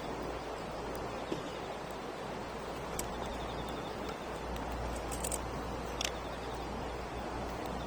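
Wood campfire crackling, with a few sharp separate pops, over a steady outdoor hiss and low rumble.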